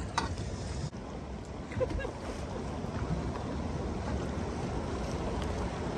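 Steady rushing noise of wind on the microphone and moving water, with a brief faint voice about two seconds in.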